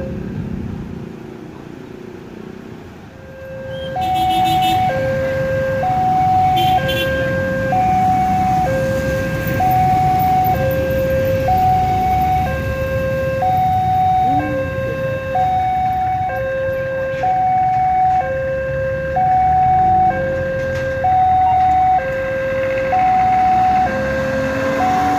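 Two-tone electronic warning alarm, like a railway level-crossing signal, alternating high and low about once a second. It stops briefly near the start and resumes about four seconds in. Under it is a steady low rumble from the arriving diesel-hauled train, with a few short metallic clanks early on.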